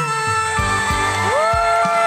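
Female singer with band accompaniment. About a second in she slides up into a long held note over the band and low bass drum beats.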